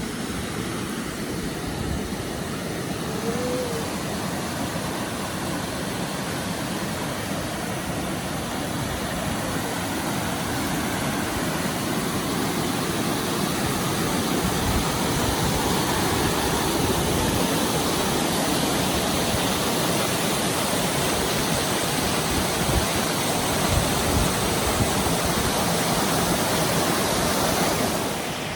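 Rushing water of a waterfall cascade, a steady wash of noise that grows louder about halfway through and drops off suddenly near the end.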